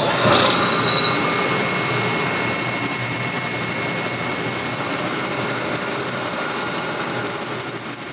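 Four-ball extreme-pressure lubricant tester running: its top steel ball spins at about 1800 rpm against three clamped steel balls under heavy load in a competitor's chainsaw bar oil, giving a steady, loud mechanical noise.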